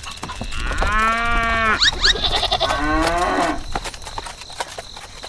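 Two long, pitched animal calls, one right after the other, each lasting about a second, over a low rumble.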